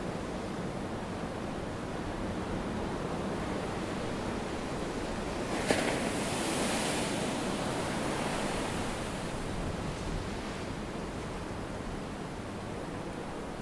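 Sea surf with a steady rush of water and wind. About halfway through, a wave breaks with a sudden crash, and its hiss washes on for several seconds before settling back.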